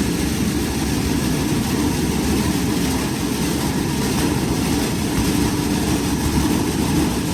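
Duct-cleaning equipment running: a loud, steady, even whoosh of a motor-driven air machine, with no change in its sound.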